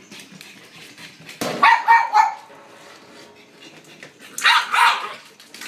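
Pug barking in two short bursts of quick barks, about a second and a half in and again about four and a half seconds in.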